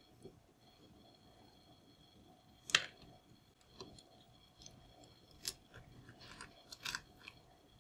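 Kitchen knife cutting raw squid against a wooden cutting board, with small wet, squishy sounds of the squid being handled. There is one sharp knock about a third of the way in, then a run of small clicks as the blade meets the board.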